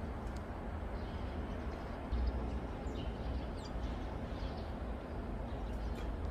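Outdoor ambience: a steady low rumble with a brief louder low bump about two seconds in, and short faint bird chirps scattered through it.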